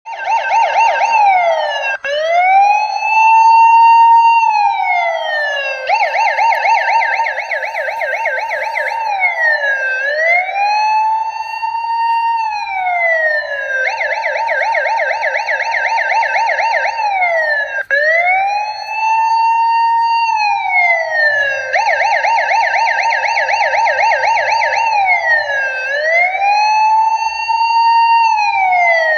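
Electronic siren in the style of an emergency vehicle, alternating between a slow wail that rises and falls over about three seconds and a few seconds of rapid yelping warble, cycling over and over.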